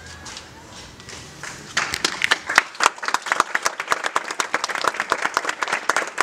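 Theatre audience applauding: dense, rapid clapping breaks out about two seconds in, after a quieter opening, and carries on.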